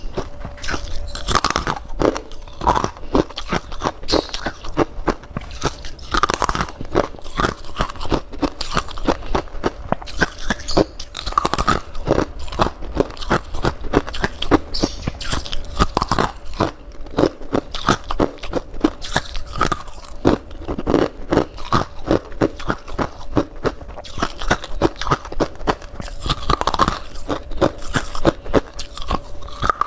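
A person crunching and chewing a mouthful of frozen humidifier frost: fast, dense, crisp crunches that keep going. A faint steady hum sits underneath.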